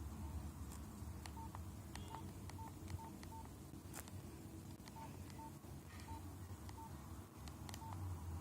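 Nokia 5125 mobile phone keypad beeping as its keys are pressed: about a dozen short, single-pitch beeps at irregular intervals, with faint key clicks, over a low steady hum.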